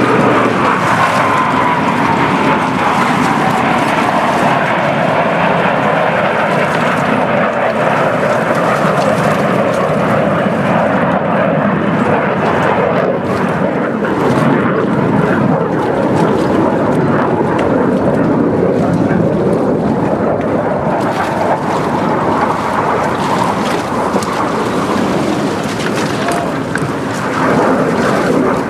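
Jet noise from F/A-18 Hornet fighters flying past. A whine falls steadily in pitch over the first few seconds as the formation passes, then a loud, steady rumble continues as the jets keep flying.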